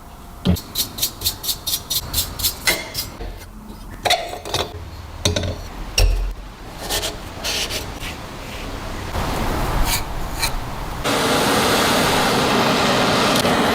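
Hand scraping or filing on rusted lamp metal in quick regular strokes, about three a second, then scattered knocks and clicks. A steady noisy rush takes over near the end.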